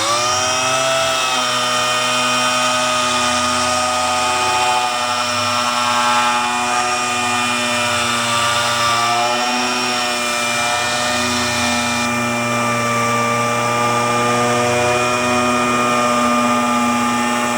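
The 1978 Camaro Z28's small-block V8 running at a steady fast idle. Its pitch drops in the first second as the revs settle, then it holds an even note until it cuts off suddenly.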